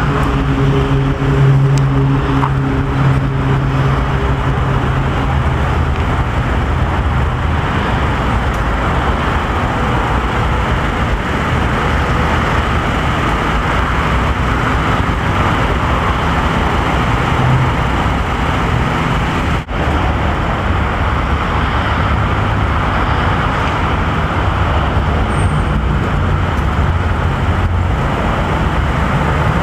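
A car's engine idling close by under steady traffic noise, with a low hum that holds through the whole stretch; the sound cuts out for a split second about twenty seconds in.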